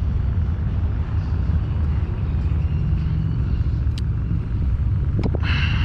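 Steady low outdoor rumble, with two sharp clicks about four and five seconds in and a brief rustle at the end.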